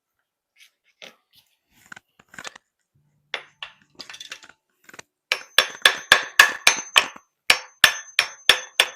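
Steel chisel being worked under a glued-on plastic speaker trim ring. Scattered scrapes and knocks for the first few seconds, then about five seconds in a fast run of sharp, ringing metallic taps, about five a second, as the chisel is driven in to break the factory glue.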